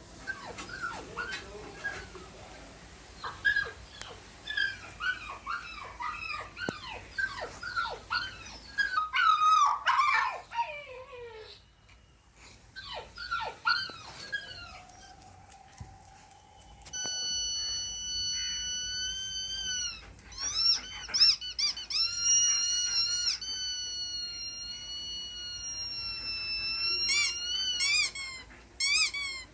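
High-pitched squeaking and whining sounds: at first many short squeaks that fall in pitch. From about halfway in come long, held, wavering squeals.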